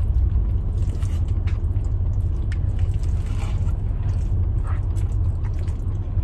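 Steady low rumble of the parked car running, heard inside the cabin, with scattered light clicks and rustles from plastic forks and a paperboard food box as two people eat.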